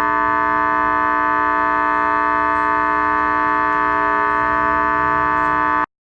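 A loud, steady, shrill tone made of several pitches at once, held without any change in pitch, cutting off abruptly near the end.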